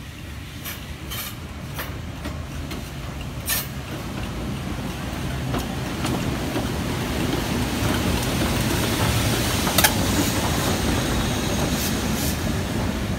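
LMS Black 5 steam locomotive No 45407 and its coaches rolling past along a station platform: a heavy rumble of wheels on rails that grows louder over the first several seconds, with scattered sharp clicks and clanks from the wheels and rail joints.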